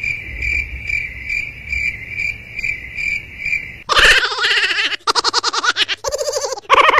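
Cricket chirping: a steady high trill pulsing about three times a second. About four seconds in, it gives way to loud, pitched cries in short rapid pulses.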